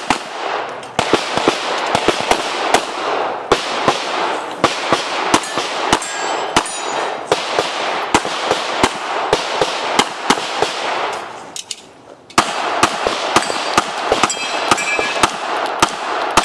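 Springfield XDm 5.25 9mm pistol fired in quick strings of shots, with a short break about twelve seconds in. A metallic ringing follows some of the shots, typical of steel targets being hit.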